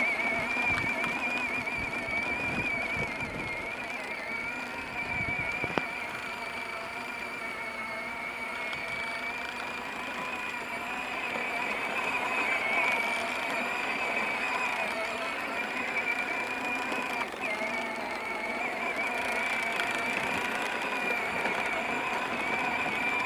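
Electric drive motor and gearbox of a battery-powered ride-on toy tractor whining steadily as it drives over grass, the pitch wavering slightly, with one sharp click about six seconds in.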